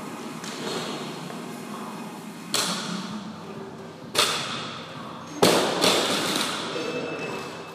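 A barbell loaded with bumper plates is set down on the gym floor between deadlift reps. It hits with sharp thuds about two and a half and four seconds in. Near the end it is dropped with a louder thud and bounces once.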